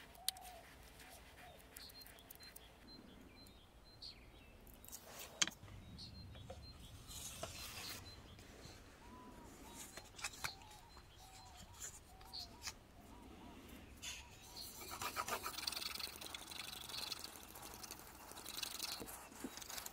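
Faint nature ambience with short, repeated chirping calls, under soft scratching of fine sandpaper rubbed by hand over a steel cleaver blade; the scratching is busiest a few seconds before the end.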